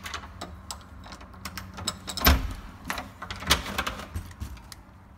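An interior door to the garage being opened and passed through: a string of clicks and knocks, the loudest about two seconds in, dying away near the end.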